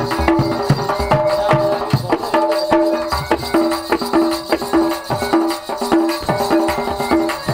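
Instrumental interlude of Sambalpuri Danda folk music: drum strokes under a repeating melodic figure of short held notes, about two a second.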